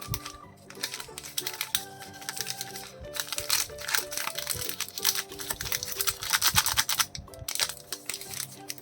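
Plastic biscuit wrapper crinkling and crackling as a pack is handled and opened, busiest in the middle few seconds, over background music.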